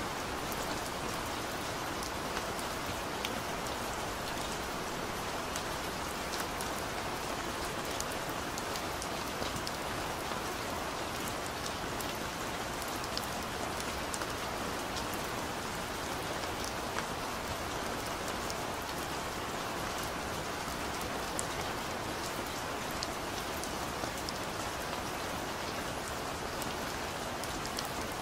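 Steady, even rain, with many single drops ticking sharply over the hiss.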